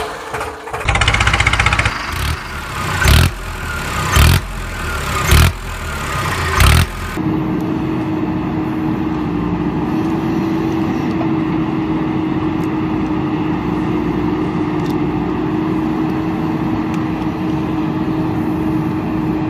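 Five loud thumps, about one a second. Then, about seven seconds in, a steady engine drone with a constant hum takes over and runs on without change.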